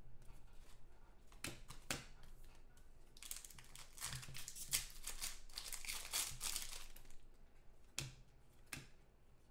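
A foil trading-card pack being torn open, its wrapper crinkling for a few seconds. There are a couple of sharp clicks before and after it.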